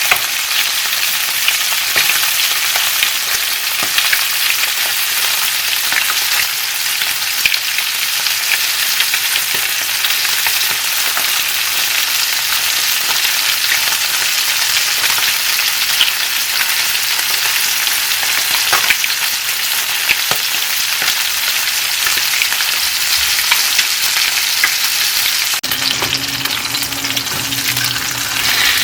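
Flounder frying in a pan: a steady sizzle with many small crackles and pops. A low steady hum comes in near the end.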